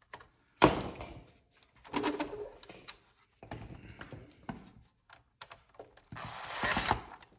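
Tools handled on a workbench, with a sharp knock about half a second in and scattered clacks, then a Makita cordless drill/driver runs for about a second near the end, backing out a screw.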